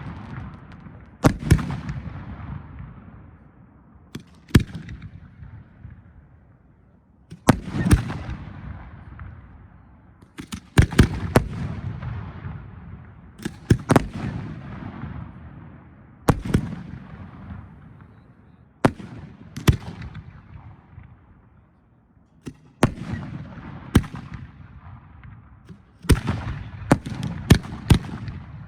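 Aerial firework shells bursting one after another, a sharp bang every second or two with quick double and triple bangs near the end, each followed by a rumbling echo that fades over a few seconds.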